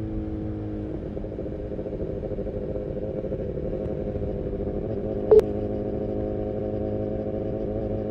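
BMW S1000R inline-four with a full Akrapovic exhaust, running steadily at moderate revs while the bike cruises; the engine note shifts slightly about a second in. A single sharp click sounds about five seconds in.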